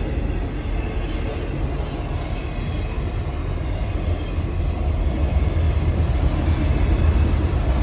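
Freight train cars rolling past at speed: a steady, heavy rumble of wheels on rail with a faint high wheel squeal, heard from inside a car, growing a little louder near the end.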